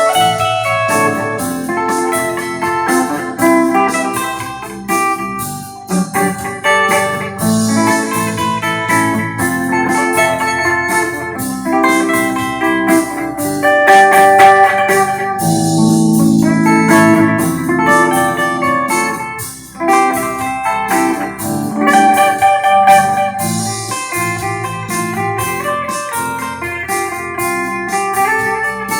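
Electric guitar played on a clean, undistorted tone, picking a continuous run of melodic single notes and chords.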